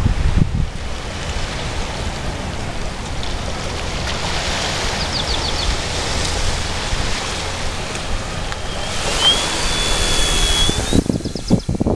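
Cessna 185 light aircraft flying past at a distance, its six-cylinder piston engine and propeller a steady drone that slowly grows louder, mixed with wind buffeting the microphone.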